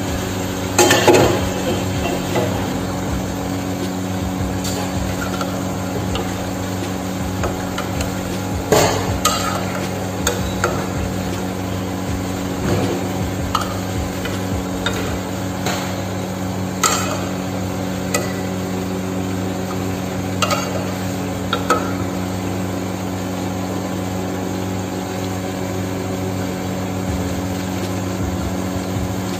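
Ladle stirring chicken and vegetables in an aluminium pot, knocking and scraping against the pot a number of times, with a loud clatter about a second in as the pot lid comes off. A steady low hum runs underneath.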